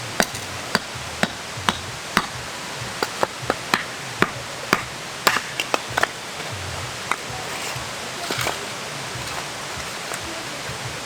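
A series of sharp, irregular knocks and taps, roughly two a second, over a steady hiss, with a brief rustle about eight seconds in.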